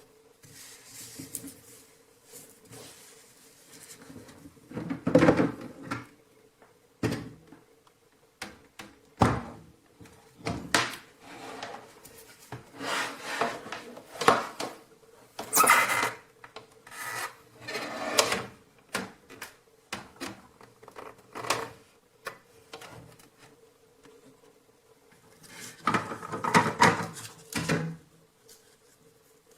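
Irregular rubbing and scraping handling noises with a few sharp knocks, over a faint steady hum.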